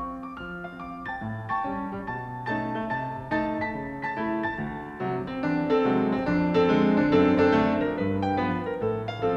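Grand piano playing a jazz solo: busy chords and running lines, growing louder about halfway through, then easing off near the end.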